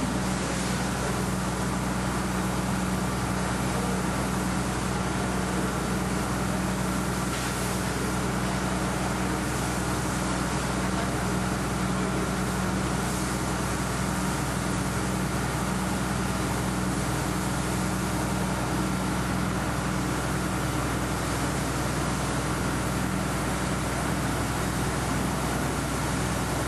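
A fire hose jet spraying water in a steady hiss, over a steady low engine drone, as water is played onto leaking chlorine cylinders to knock down the gas.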